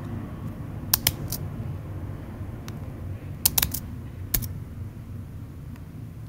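Chromebook keyboard keys clicking in short groups as a command is copied, pasted into the terminal and entered: three clicks about a second in, a few more around the middle and one last click a little later, over a low steady background rumble.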